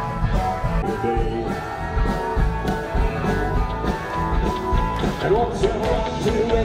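Rock and roll band with electric guitars, bass and drums, and a singing voice, playing at a steady beat.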